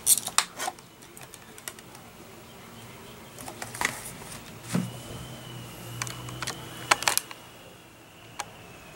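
A Blu-ray disc being pried off the hub of its plastic case: a quick run of sharp plastic clicks as it unsnaps, then scattered taps and rustles of handling the case and foldout.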